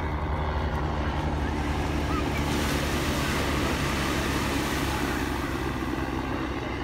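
Beach surf with a steady low rumble underneath; the hiss of the waves swells about two and a half seconds in.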